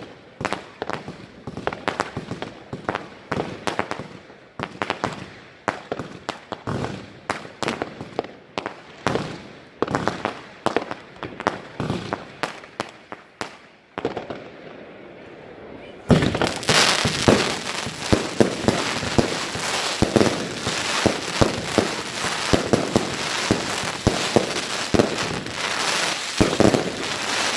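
Consumer firework batteries firing. For about fourteen seconds a run of shots goes off, each followed by a crackling burst. After a short lull, from about sixteen seconds a denser, louder barrage of bangs and crackle keeps going.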